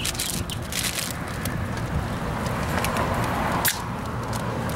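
Brown paper bag crinkling and rustling as a drink can is handled inside it, with scattered small clicks and one sharp click near the end, over a steady low background rumble.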